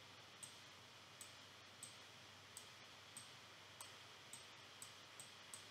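Computer mouse clicking: about ten faint, sharp clicks at an irregular pace of one or two a second, over a low steady hiss.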